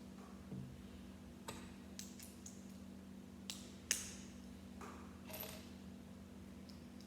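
Plastic Lego pieces being handled and snapped together: a series of faint, short clicks and taps, with a sharper tap about four seconds in. A low steady hum runs underneath.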